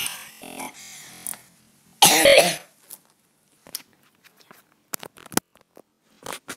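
A girl's single short cough about two seconds in, followed by scattered light clicks and knocks of the phone being handled.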